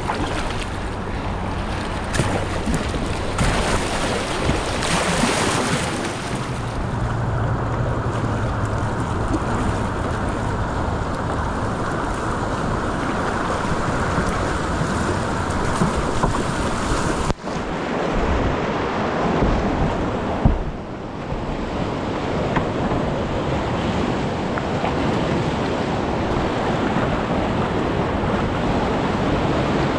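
Whitewater rapids rushing and churning around a kayak as it runs a wave train, with wind buffeting the camera microphone. The sound cuts out for an instant a little past halfway, then the steady rush resumes.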